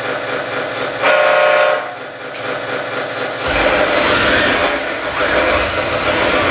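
Remote-control toy truck's electronic sound effects: a horn blast about a second in, over a steady motor noise. About halfway through, a deeper engine rumble sets in as the truck moves off in first gear.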